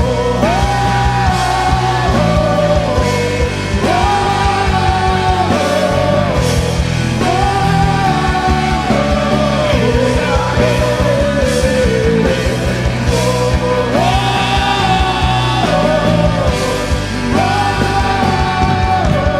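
Live worship band playing a rock song with drums, bass and a melody sung or played in long held phrases, each rising and falling over a couple of seconds.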